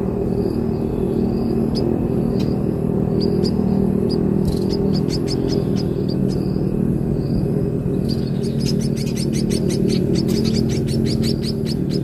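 Munia chicks chirping in rapid high runs of about ten chirps a second: a short burst midway and a longer one near the end. A loud, steady low hum runs underneath.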